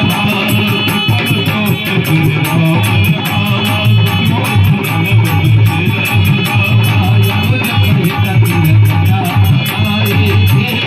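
Dholak drumming in a fast, steady rhythm as part of devotional folk music, with sustained tones above it.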